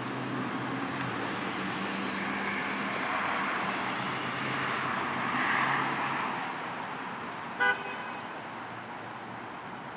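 Traffic on a wet road: tyre hiss swells to a peak about halfway through and then fades, over a low engine hum. About three quarters of the way in comes one short, sharp toot of a car horn, the loudest sound.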